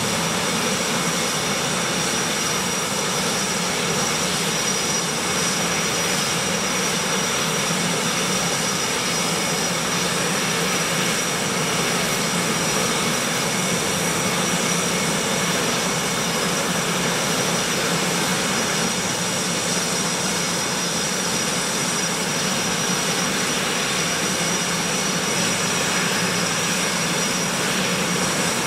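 Jet engines of KAI T-50B trainers running at idle: a constant turbine whine with a steady high tone over a rushing noise, unchanging throughout.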